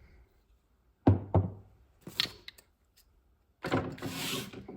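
Hard objects being handled: two solid knocks about a second in and a lighter knock just after two seconds, then about a second of scraping rustle near the end.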